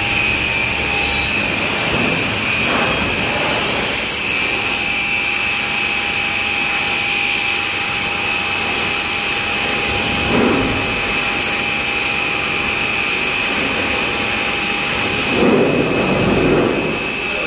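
Steady high-pitched whine over a constant hiss from a running workshop machine, swelling louder briefly about ten seconds in and again near the end.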